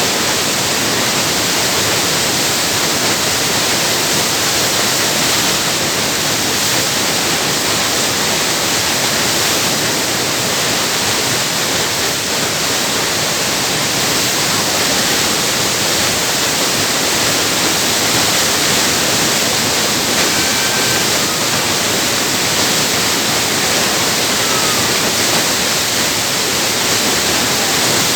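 Heavy water flow cascading down the stepped spillway of New Croton Dam: a steady, loud rush of falling water.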